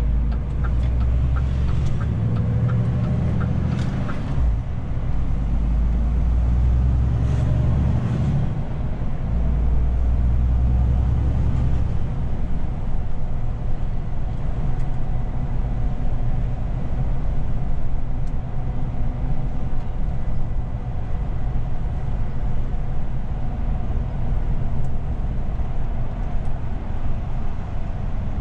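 In-cab sound of a DAF CF 450 truck: the turn-signal indicator ticks about twice a second for the first few seconds while the inline-six diesel pulls away heavily, easing briefly twice. After about twelve seconds it settles into steady engine and road noise at cruising speed.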